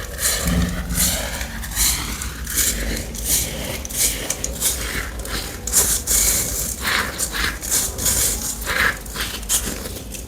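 Grey baking soda being sifted and crumbled, giving crunchy, crackling, scraping strokes that come unevenly, about one or two a second.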